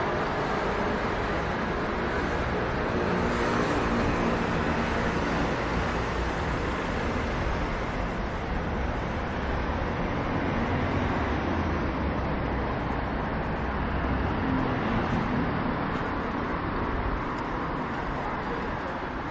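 City street traffic: a steady wash of car and road noise from passing vehicles, with an engine hum standing out for the first few seconds before it fades into the general noise.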